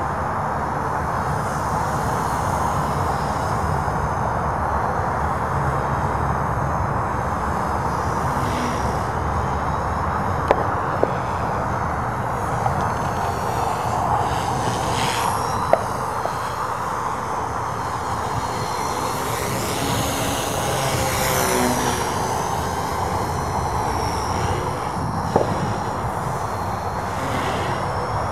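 RC helicopter's rotor and motor running steadily in flight, with the pitch sweeping up and down about two-thirds of the way through as it manoeuvres. A few sharp clicks are scattered through.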